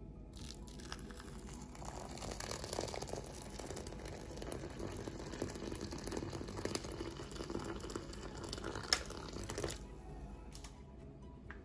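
Water poured in a steady stream onto dry red lentils in a bowl, splashing and filling; the pour starts about half a second in and stops near the end, with one sharp click just before it stops.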